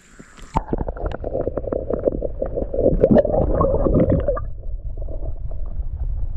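Muffled water gurgling and sloshing with a crackle of bubbles, loudest for the first four seconds or so, then settling to a low rumble.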